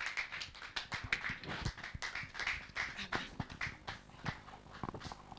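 Small congregation clapping and applauding: a scattered, irregular patter of hand claps.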